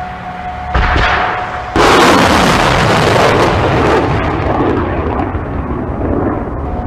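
Surface-to-air missile launches: a sudden blast about a second in, then a louder one, followed by a loud rushing roar of rocket motors that eases after a few seconds into a lingering rumble.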